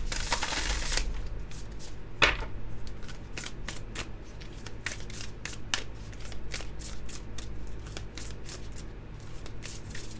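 A deck of Colour Goddess oracle casting cards being shuffled by hand. It opens with a brief rush of the two halves pushed together, then a sharp snap about two seconds in, then a run of light card clicks, several a second, as the cards are shuffled overhand.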